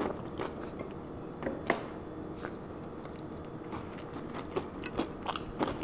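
Close-up chewing of a crunchy hard-shell taco: scattered small crunches and mouth clicks, a couple a bit louder about one and a half seconds in.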